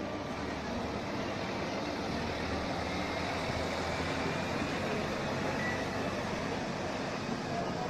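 Articulated electric tram rolling slowly past on street rails: a steady running noise of its motors and wheels.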